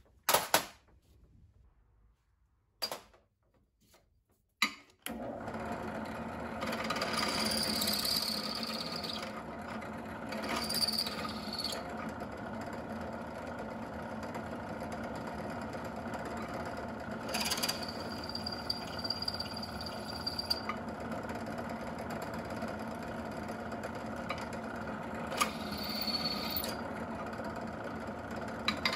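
A few handling clicks, then a benchtop drill press motor starts about five seconds in and runs steadily. Over that hum come several short spells of the drill bit cutting metal, each with a high-pitched whine.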